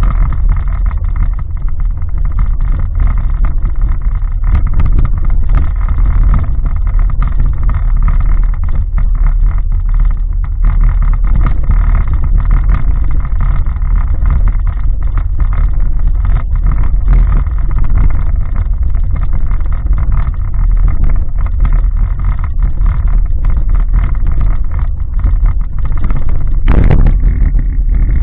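Car driving along a rough concrete lane, heard inside the cabin through a dashcam microphone. There is a steady low rumble of tyres and engine with many small rattles and knocks throughout, and a sharper bump near the end.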